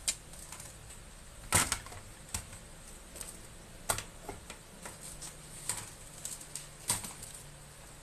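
Irregular light clicks and taps of small hard objects being handled, with about half a dozen sharper ones among fainter ticks.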